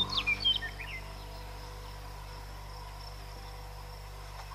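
Steady high insect chirring in the open air, with a few quick high chirps in the first second.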